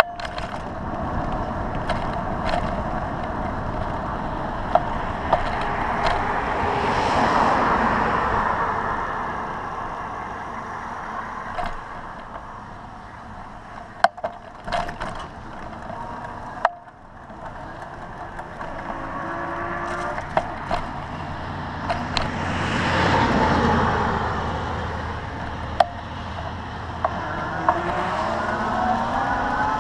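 Road traffic heard from a moving bicycle over wind and tyre noise. Two vehicles swell and fade, one about seven seconds in and one about two-thirds through, and there are sharp clicks and rattles scattered throughout. Near the end a siren starts to wail, rising in pitch.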